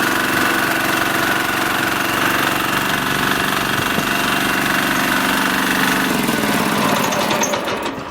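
Ride-on vibratory road roller's engine running steadily, then its engine speed drops about six seconds in.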